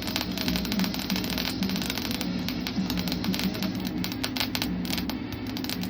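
Electric arc welding: the arc's steady crackle and hiss over the welder's low hum.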